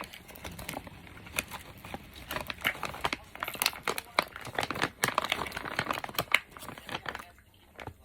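Close-miked chewing of crunchy food: dense, irregular crackling and crunching bites, which die down about seven seconds in.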